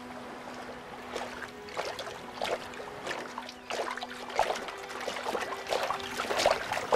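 Water splashing in repeated swimming strokes, about one or two a second, starting about a second in and growing louder, over a soft steady low hum of held tones.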